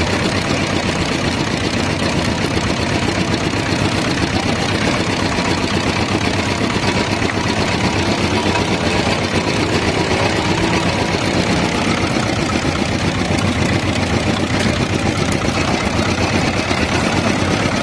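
Small engine running steadily, driving a sugarcane juice press through a belt and pulleys while cane stalks are crushed between its steel rollers.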